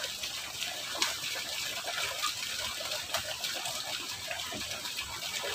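Steady rushing of water flowing along a small irrigation ditch.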